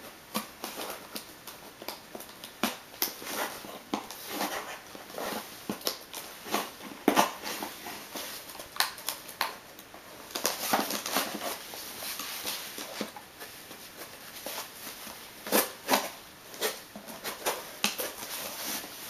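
Cardboard shipping box being cut open with a small blade and its packaging handled: a run of scrapes, small tearing sounds, rustles and knocks.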